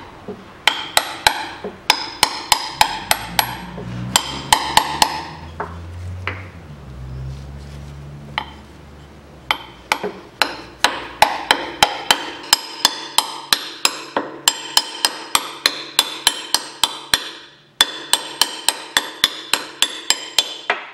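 Hammer striking a seal-driving mandrel to drive a new drive-shaft oil seal into its bore in the transmission case. The blows come in runs of about three a second, each with a short metallic ring, with a pause of a few seconds partway through.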